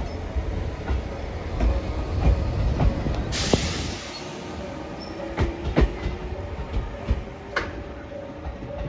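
JR 213 series 5000 electric train passing through a station. Its wheels clack over the rail joints above a low rumble, and a short hiss sounds about three seconds in.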